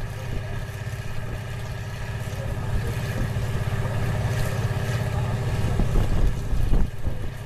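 Farm tractor engine running steadily with an even low beat, with a few knocks about six to seven seconds in.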